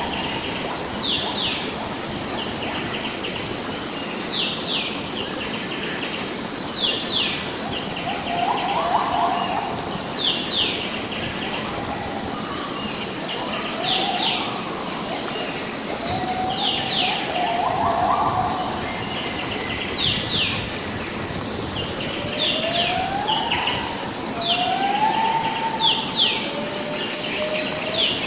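Wild birds calling over a steady background hiss: short high notes that sweep downward, often in pairs, every second or two, mixed with lower slurred whistles that rise in pitch.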